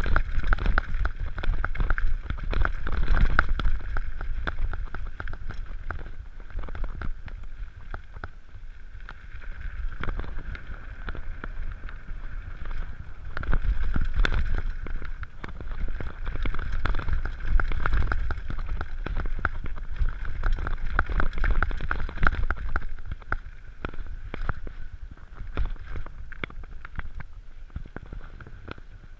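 Mountain bike riding downhill over a rough gravel and dirt trail: tyres crunching on loose stones and the bike rattling over bumps, with wind on the microphone. The rattling comes in louder rough patches and eases on smoother stretches.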